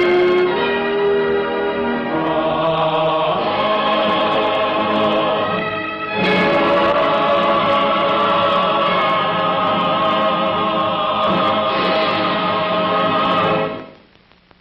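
Orchestral film-score finale with a choir singing sustained chords. It swells to a fuller climax about six seconds in and fades out near the end.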